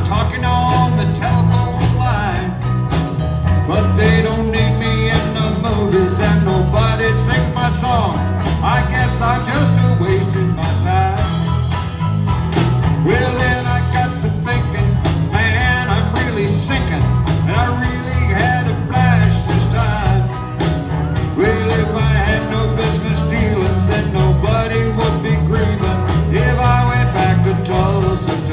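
Live country-rock band playing an instrumental stretch with no vocals: electric guitars over bass and a steady drum beat.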